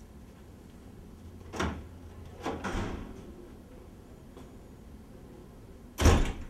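A room door being opened and shut: a knock about a second and a half in, a rattling clunk a second later, and a louder thud near the end.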